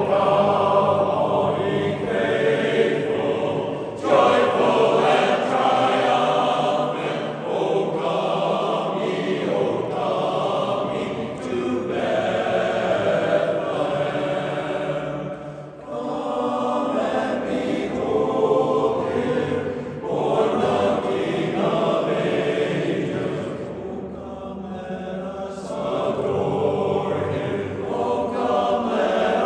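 Barbershop chorus singing a Christmas carol a cappella in close harmony, in sustained phrases a few seconds long with brief breaths between them.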